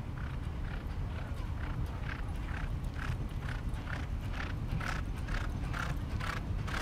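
Two thoroughbred racehorses galloping at work speed on a dirt track, their hoofbeats drumming about twice a second and growing louder as they come closer.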